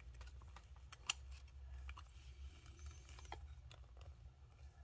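Light clicks and taps of plastic model kit parts being handled and pressed together while test fitting, with a couple of sharper clicks.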